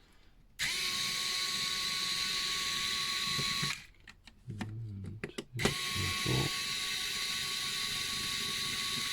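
Electric screwdriver backing out small screws from the RC car's gearbox, running steadily twice for three to four seconds each time, with a short pause of clicks between the runs.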